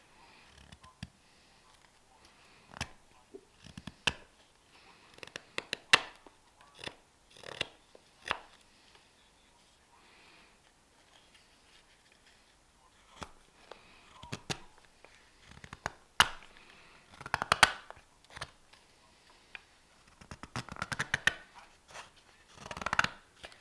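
Carving knife slicing shavings from a green-wood spoon: separate short scraping cuts at an uneven pace, with quicker runs of cuts in the second half.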